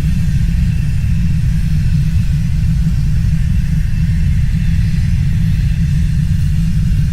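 Steady, loud, deep rumble with a faint hiss above it, unbroken and without distinct impacts.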